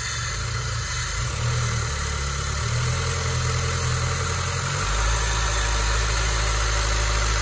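Peugeot 406 engine idling steadily after being restarted from repair work, its running smoothing out as the hydraulic lash adjusters fill with oil. About five seconds in, the idle note drops lower and gets slightly louder.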